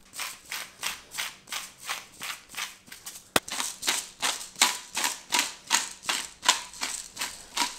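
Handheld spice grinder being twisted in quick repeated strokes, about three or four rasping grinds a second, with one sharp click a little under halfway through.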